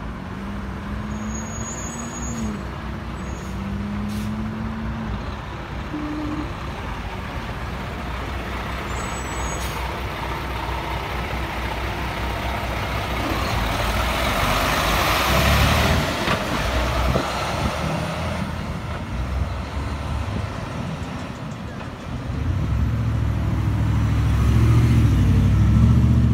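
Heavy diesel truck engines running as a truck pulls out, the first being the Kenworth T880 Super Cab dump truck with its Paccar MX13 engine. There is a loud air-brake hiss a little past halfway, and a diesel engine gets louder near the end as a truck accelerates.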